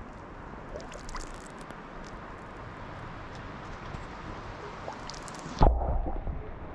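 Natural spring water running with a soft steady trickle and small drips. A gust of wind buffets the microphone about five and a half seconds in.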